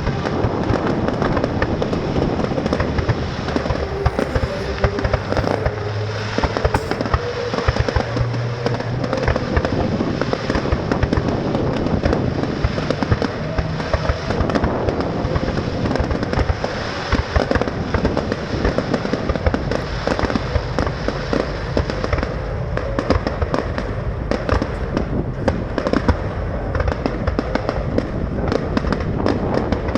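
Fireworks display: a continuous, dense barrage of bangs and crackling shells going off rapidly without a break.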